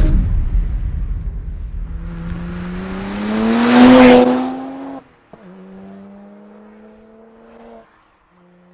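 BMW 1M's twin-turbo inline-six engine. A loud rumble fades over the first two seconds, then the engine revs, rising in pitch to a loud peak about four seconds in, and cuts off abruptly a second later. A steadier, quieter engine note follows and fades out near the end.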